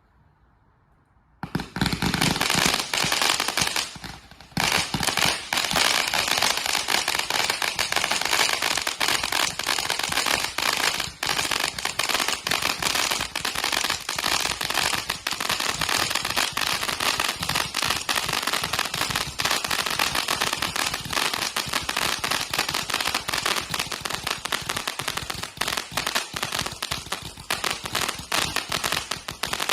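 Gatling-gun fireworks cake firing a rapid, unbroken stream of shots with dense silver crackle, starting about a second and a half in, with a brief lull at about four seconds.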